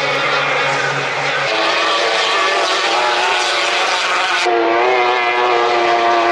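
Two-stroke racing outboard engines on hydroplanes running at speed, a loud steady high-pitched drone. The engine note changes abruptly twice as the sound jumps from one boat to another.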